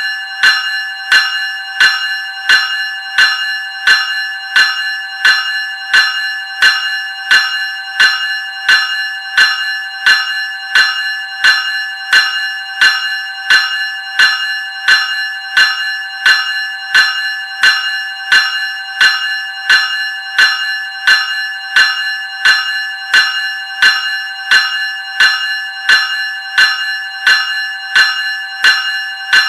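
Graham 373 Series electric bell ringing in a steady, even rhythm of about three strikes every two seconds, each strike's high metallic ring carrying on until the next.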